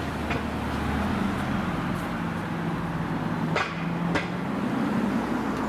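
Street traffic: a car's engine humming steadily over road noise, its tone stepping up about a second in. Two sharp clicks about three and a half and four seconds in.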